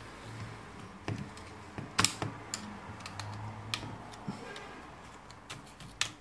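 Sharp plastic clicks and taps at irregular intervals, the loudest about two seconds in, as a cover is worked off the end of a Samsung SCX-4623 laser printer's fuser unit by hand and screwdriver.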